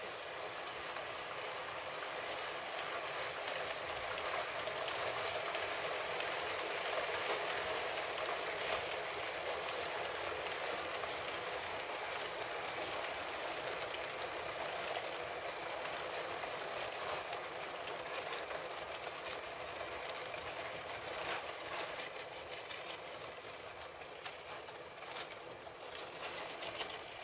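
Long Lego City 60197 passenger train driven by two electric train motors, one at the front and one pushing from the last wagon, running over plastic Lego track. A steady rattle and whir of many small plastic wheels and couplings swells as the train comes close, then slowly fades, with a few sharp clicks near the end.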